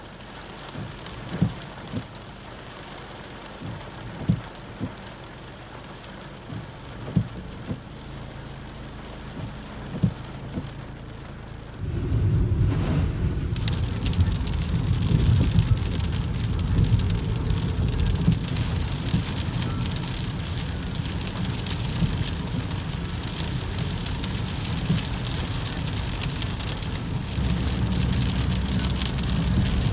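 Heavy rain on a car's roof and windshield, an even patter with occasional sharper taps of single drops. About twelve seconds in it changes to driving on a wet road: a louder, deeper rumble of road and tyre noise with a hiss of spray and rain on the glass.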